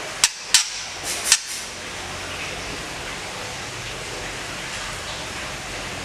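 White-rumped shama (murai batu) giving four short, sharp call notes in two quick pairs within the first second and a half, over a steady background hiss.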